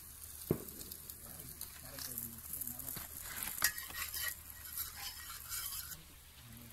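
Masala-coated fish slices sizzling in a pan over a wood fire, with a crackling hiss throughout. A metal spatula scrapes and clicks against the pan as the pieces are lifted out, with sharp clicks about half a second in and again about three and a half seconds in.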